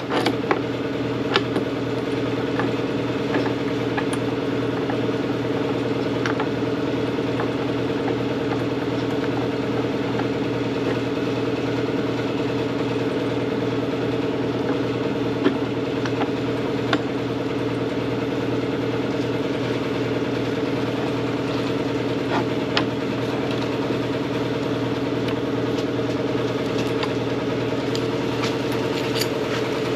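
A machine running with a steady, unchanging hum, with occasional light clicks and taps over it.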